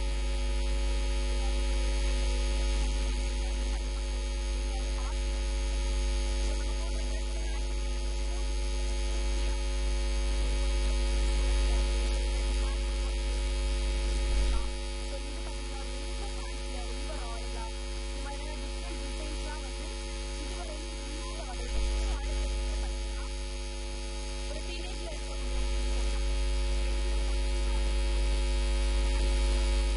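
Steady electrical mains hum: a strong low drone with a ladder of fainter steady tones above it. It drops in level for a stretch about halfway through, then comes back up.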